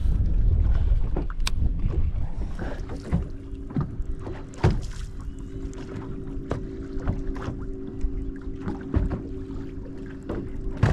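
Wind rumbling on the microphone and water slapping against a fishing boat's hull, with scattered sharp knocks, the loudest about halfway through. About a quarter of the way in a steady low motor hum starts and runs on.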